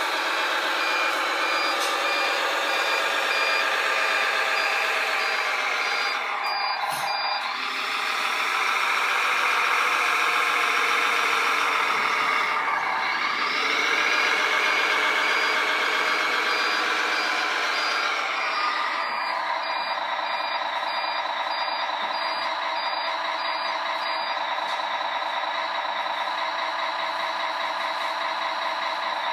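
Simulated truck diesel engine from the radio-controlled Bruder Scania 8x8's electronic sound module, running steadily, with its pitch falling and rising again twice as the throttle changes. A reversing beeper repeats over it for the first few seconds, stops about seven seconds in, and returns later for several seconds.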